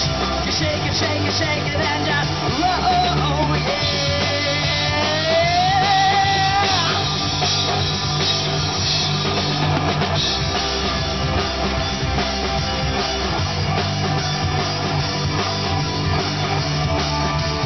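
Live rock band playing with electric guitars and a drum kit, a steady driving beat under a lead line that slides and bends.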